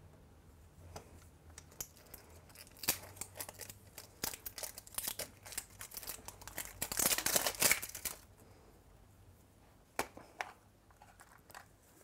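Plastic shrink-wrap being peeled and torn off a plastic toy capsule egg: crinkling and crackling with scattered sharp clicks, thickest about seven seconds in. A couple of sharp clicks near the end as the plastic capsule is pried open.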